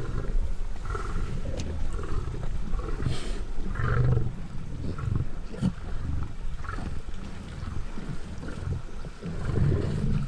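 Lions growling low and in irregular bouts while feeding on a zebra kill, louder about four seconds in and again near the end, with a few short sharp clicks.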